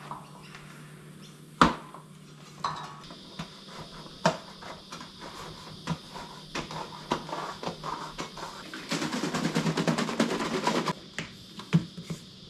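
Mountain bike tyre being worked onto its rim by hand: scattered knocks and clicks, one loud knock about a second and a half in, and a fast run of clicking for about two seconds near the end.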